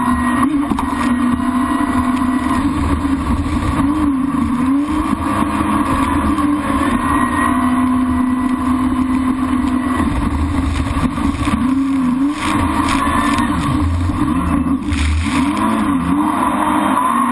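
Jet ski engine running at speed, with water spray rushing past the hull. The engine pitch dips briefly and comes back up several times, mostly in the second half.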